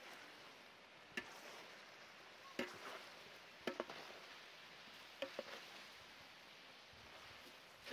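Faint cooking sounds: about six short, sharp clicks and knocks, some in quick pairs, over a faint steady hiss.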